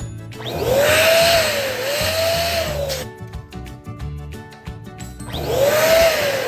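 Electric balloon pump blowing air into a balloon in two runs of about two and a half seconds each, the second starting about five seconds in. It is a steady hiss with a motor whine that rises and dips as it runs, over background music.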